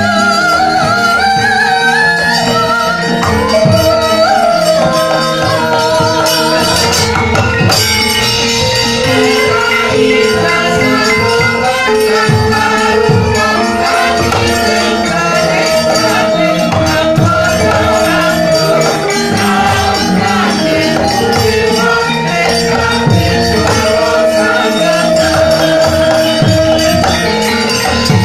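Javanese gamelan ensemble playing, with long held metallophone notes over repeated drum strokes.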